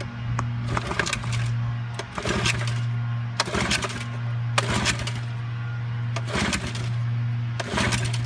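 A vintage single-cylinder outboard being pulled over again and again on its recoil starter, about six pulls roughly a second and a half apart, each a short rattling crank. The engine does not fire, with fuel overflowing from a carburettor float needle that the owner believes is not seating. A steady low hum runs underneath.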